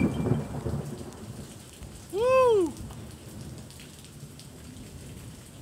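Steady rain, with a low thunder rumble dying away over the first second. About two seconds in, a short, loud pitched cry rises and falls in pitch, the loudest sound here.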